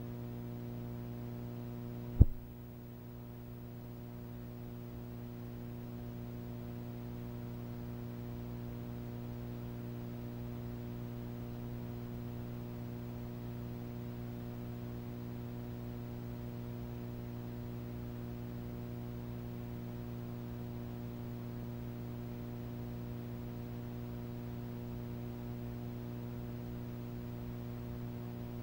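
Steady electrical mains hum with a buzzy edge, under the blank end of a home videotape. A single sharp click about two seconds in.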